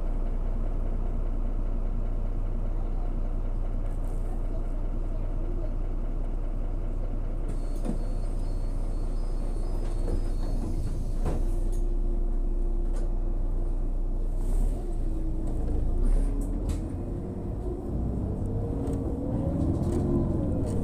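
Irisbus Crealis 18 GNV natural-gas articulated bus: the engine hums steadily at idle, with a few sharp knocks between about ten and sixteen seconds in. Near the end the engine note rises as the bus pulls away.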